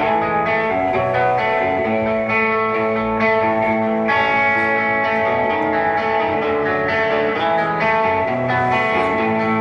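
Rock band playing an instrumental passage: electric guitar chords ring out and change every second or two, with no singing.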